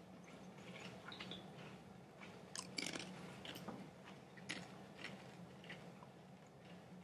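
Faint scattered crackles and clicks of communion bread being eaten and its elements handled close to a microphone, busiest about three seconds in, over a low steady hum.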